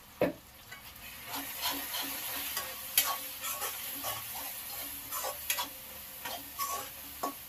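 Metal slotted spatula scraping and clinking against a metal kadai as a thick onion-tomato masala is stirred, with the masala sizzling over the gas flame. A single sharp clink comes right at the start; the stirring begins about a second in.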